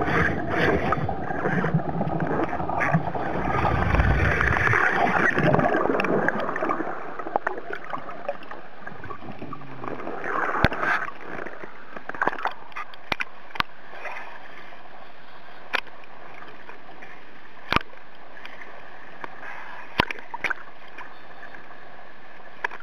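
Water and bubbles rushing and gurgling against an underwater camera for the first six or seven seconds, with a deep rumble about four seconds in. Then a steadier, quieter water hiss broken by sharp single clicks and knocks every second or two.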